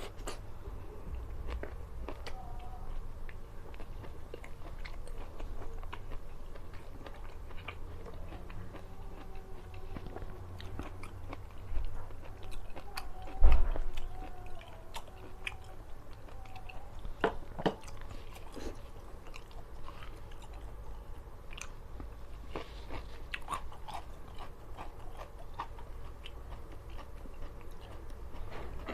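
A person chewing and biting food close to the microphone, with crunchy bites and small mouth clicks, during a meal of rice, fried salted fish and raw vegetables. There is a louder thump about halfway through.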